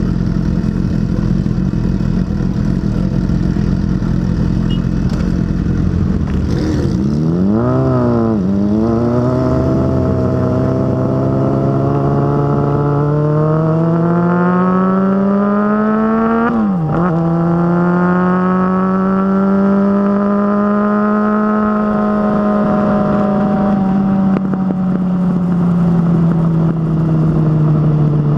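Motorcycle engine running at low revs with a choppy beat, then pulling away with the revs climbing steadily. It changes gear with a quick dip and recovery past the halfway mark, then cruises with the revs slowly easing off.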